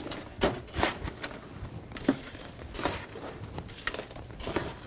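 Crushed ice being scooped and packed into a tiki mug: a handful of short, separate crunching scoops.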